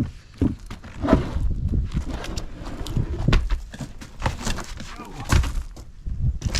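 Heavy double-bit splitting axe striking a firewood round again and again, sharp knocks as the wood cracks and splits apart, with clattering and knocking between the blows.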